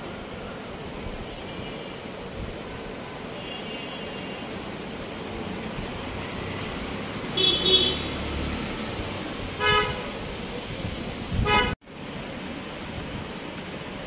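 Vehicle horns honking in the street: three short toots, about two seconds apart, over a steady background hiss. The first toot is the loudest.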